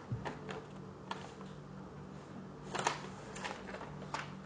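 Paper rustling and crinkling as sheets are handled and drawn out of a paper envelope: a string of short crackles, the loudest nearly three seconds in, over a faint steady hum.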